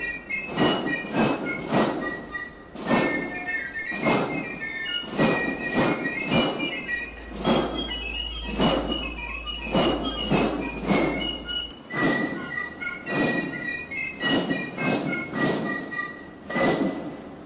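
Background music: a steady, heavy drum beat under a high melody.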